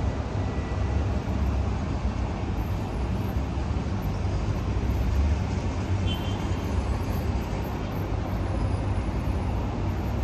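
Steady city road traffic noise, an even rumble from cars on the streets below with no single vehicle standing out.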